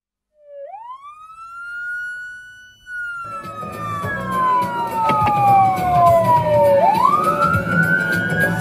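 Fire engine siren wailing: it rises sharply about half a second in and holds, then falls slowly for about four seconds and rises again near the end. The truck's engine and road noise come in underneath about three seconds in.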